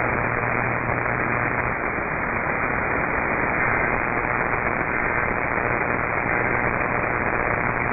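Steady radio static: an even hiss with no program audio, heard through a narrow-band radio receiver, with a low hum under it that is strongest for the first two seconds.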